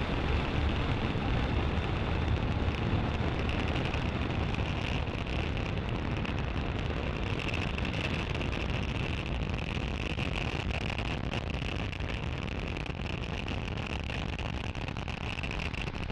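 Steady rumble of a Falcon 9 rocket's nine first-stage Merlin engines on ascent shortly after liftoff, slowly growing fainter as the rocket climbs away.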